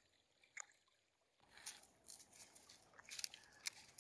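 Near silence, with a few faint clicks and rustles starting about a second and a half in.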